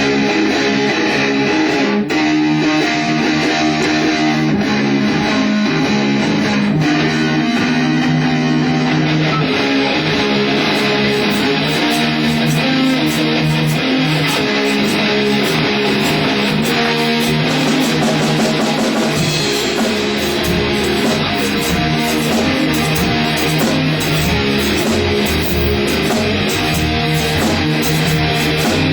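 Rock band playing an instrumental intro: an electric guitar riff over bass guitar, the sound filling out about ten seconds in.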